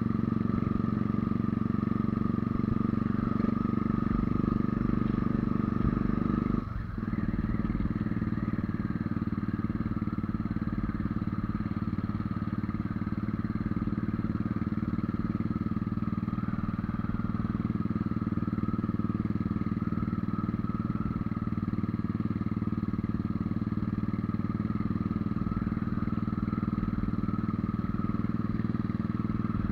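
Motorcycle engine running steadily under load on a climb, with a brief dip about seven seconds in. The rider feels it is short of power in the thin high-altitude air even after being set up for altitude.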